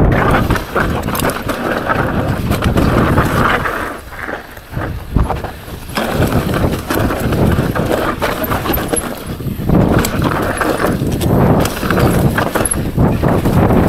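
Mountain bike descending a rough dirt and rock singletrack: tyres rolling over dirt and rocks, with a constant clatter of knocks and rattles from the bike over the bumps. The noise eases briefly about four seconds in, then picks up again.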